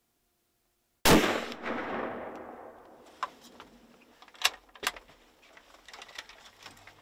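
A single shot from a CVA Paramount Pro muzzleloader about a second in, its boom rolling away in echoes for about two seconds. A few faint sharp clicks follow.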